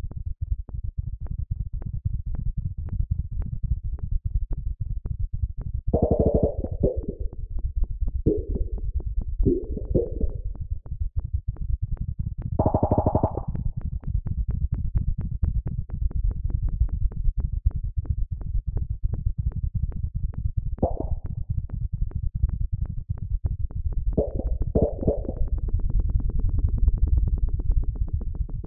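Synthesized sonification of earthquake data from Iceland's Reykjanes peninsula: a fast, continuous stream of low electronic pulses whose tempo follows the number of tremors per day, with pitch set by their average depth and loudness by their magnitude. Several short, higher synth swells come and go, and the pulses grow faster over the last few seconds.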